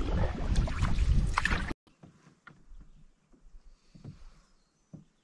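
Canoe being paddled: loud wind buffeting the microphone over the splash of paddle strokes. It cuts off abruptly a little under two seconds in, leaving a much quieter stretch with a few faint knocks and water sounds.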